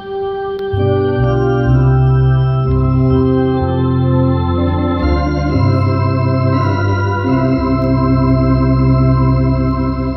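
Tokai MD-750 electronic organ playing a hymn in sustained chords over a strong bass line, the chords changing every second or so, then settling on one long held chord near the end.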